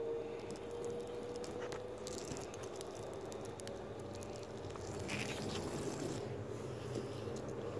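Light clicks and rustling of a plastic toy airliner and the recording phone being handled over a tabletop, with a steady hum that fades out about two seconds in.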